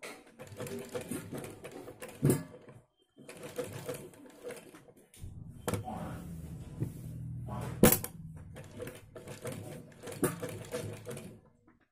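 Sewing machine stitching a placket onto a kurti in three runs with a rapid, even clatter, pausing briefly about three and five seconds in. Two sharp knocks stand out, about two and eight seconds in.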